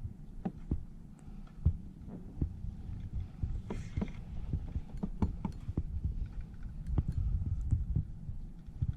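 Low muffled thumping and rumble with scattered small knocks and clicks on a fishing kayak, and a brief hiss about four seconds in.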